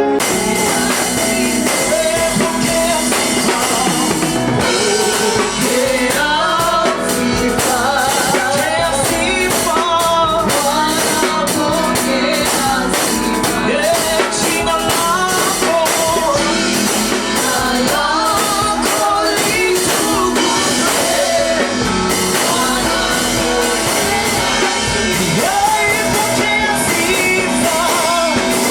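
A band playing a rock song with drum kit and guitar, steady and loud, with a singer's voice coming in about five seconds in and carrying on.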